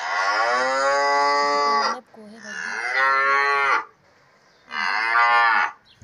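Cows mooing: three long moos, the first the longest, with short gaps between them.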